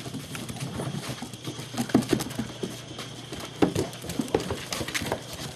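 German Shepherd puppies scampering and tussling, their paws pattering and scrabbling in irregular quick clicks and knocks, with louder thumps about two seconds in and again past three and a half seconds.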